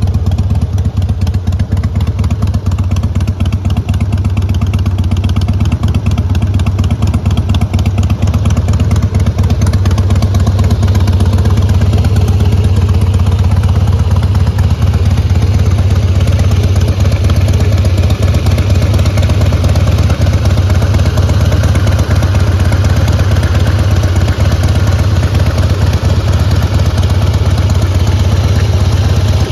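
2004 Harley-Davidson Heritage Softail Classic's fuel-injected Twin Cam 88B V-twin engine running steadily.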